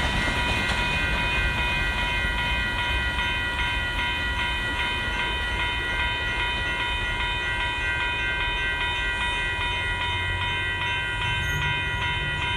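Railroad grade-crossing warning bell ringing steadily over the low rumble of a loaded rock train's freight cars rolling past. The bell stops right at the end.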